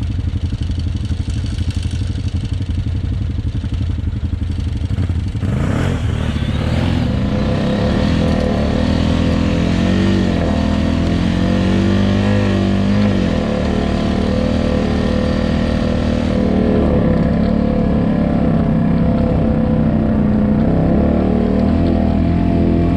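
Quad bike engine idling, then from about five seconds in revving up and running under load across rough tussock ground, its pitch rising and falling with the throttle.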